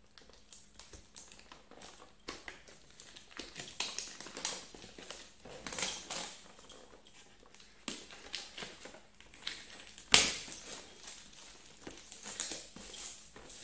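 Hands opening and handling a trimmer's packaging: irregular crinkling and scraping with scattered clicks, and one sharp knock about ten seconds in.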